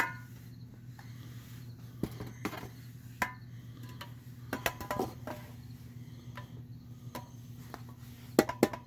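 Scattered light clicks and taps as small metal model display cases are handled, with a quick run of clicks near the end, over a steady low hum.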